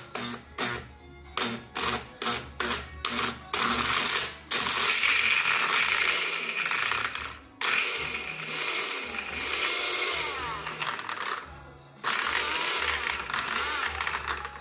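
Small personal blender with a push-down bottle, blending chopped ripe mango. It is pulsed in short bursts, two or three a second, for the first few seconds, then run in longer continuous stretches that stop briefly twice.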